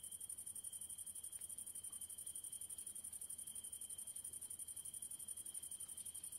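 Grasshoppers stridulating in a continuous, very high-pitched trill that pulses rapidly and evenly, with a fainter steady whine lower down.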